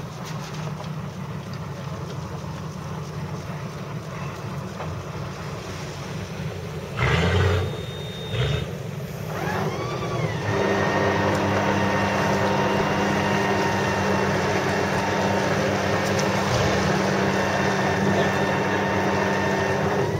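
Boat engine running steadily with water and wind noise. A brief thump comes about seven seconds in, and from about ten seconds in the engine runs louder with a steady whine.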